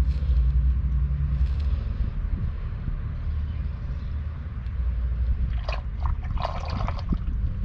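Wind buffeting the microphone: a low, gusting rumble. A few short knocks and scrapes come in the second half.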